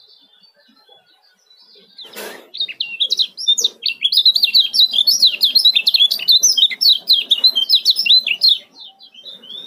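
Kecial kuning white-eye singing its 'ciak' song: a fast, dense run of short, high chirping notes that starts about two and a half seconds in and lasts about six seconds. A brief rustling noise comes just before it.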